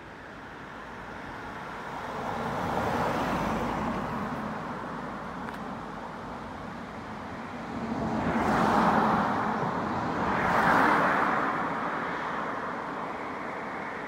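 Cars driving past one after another on a narrow paved road, their tyre and engine noise swelling and fading three times: once about three seconds in, and twice close together a little past the middle.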